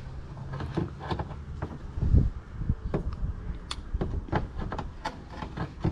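Hands working around the bulb socket inside a car's wheel well: scattered light clicks and knocks of plastic being handled, one a little louder about two seconds in, over a low rumble.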